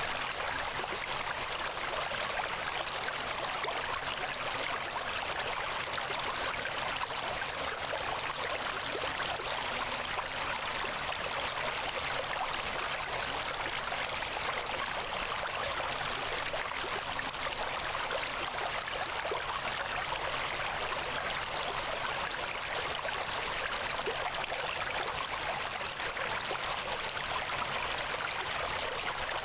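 Steady rushing noise like a flowing stream of water, even and unchanging throughout.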